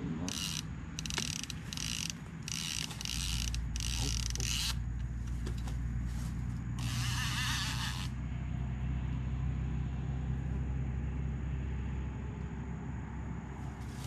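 Fishing reel's drag buzzing in short runs as line is pulled off the spool, about six quick runs and then a longer one about seven seconds in: the sign of a fish taking the bait. A low steady rumble runs underneath from about three seconds in until near the end.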